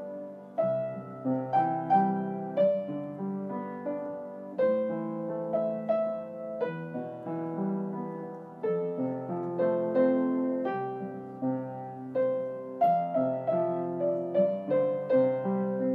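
Background piano music: a gentle melody over chords, each note struck and dying away.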